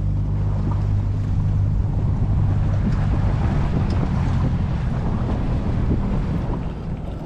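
Small motorboat under way: the engine hums steadily under wind buffeting on the microphone and the hiss of water along the hull, then eases off near the end.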